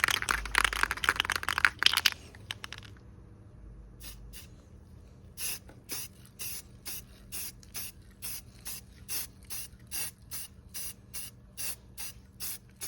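Aerosol spray can of primer: a dense rattle in the first couple of seconds, then short hissing spray bursts about twice a second, each lasting a fraction of a second.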